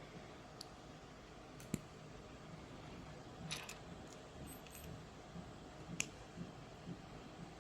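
Faint, scattered clicks and taps of small plastic Lego pieces being handled and pressed together, the sharpest about two seconds and six seconds in, with a brief rustle about three and a half seconds in.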